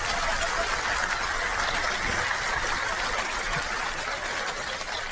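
Studio audience applauding, a steady spatter of many hands clapping.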